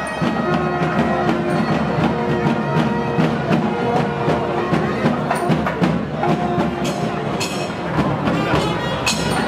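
Nadaswaram playing a melody in long held notes over quick, sharp thavil drum strokes: the double-reed-and-drum ensemble of South Indian temple processions.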